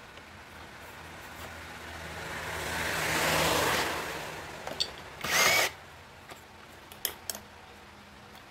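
A power drill-driver runs for a couple of seconds, building up and dying away, as the horn is unbolted from the motorcycle's front end. A short loud scrape follows about five seconds in, then a few light clicks.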